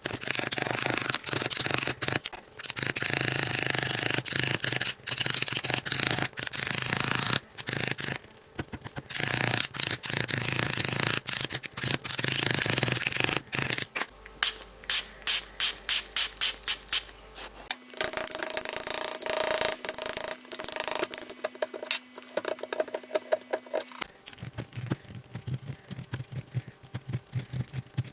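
Hand scraping and rubbing at a gem excavation kit, gritty strokes in long runs with short breaks. About halfway through comes a quick run of short, evenly spaced scrapes, then a hissier stretch with a faint low hum.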